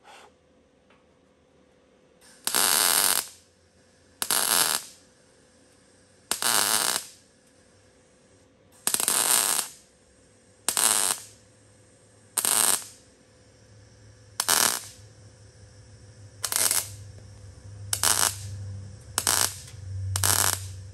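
MIG welder laying a series of short tack welds on car-body sheet steel: about eleven separate bursts of welding, each under a second, coming closer together toward the end.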